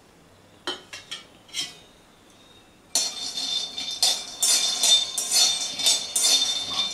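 Metal spatula stirring and scraping peanuts around a bare aluminium kadai: a rattling clatter of nuts and spatula on the metal pan that starts about three seconds in, after a few light clicks.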